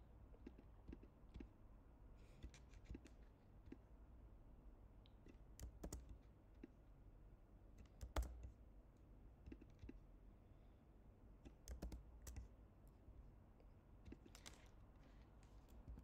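Faint, scattered clicks of a computer keyboard and mouse, irregularly spaced over the whole stretch, with the sharpest click about eight seconds in.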